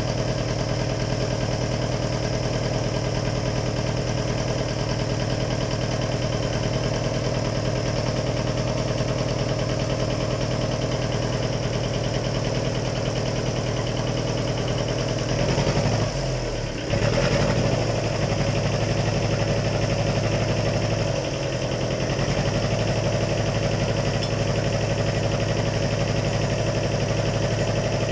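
Fordson Power Major's four-cylinder diesel engine idling steadily on its freshly overhauled injection pump, fitted with oversized elements, in its first run after the pump change. The engine note wavers briefly about sixteen seconds in, then settles back to an even idle.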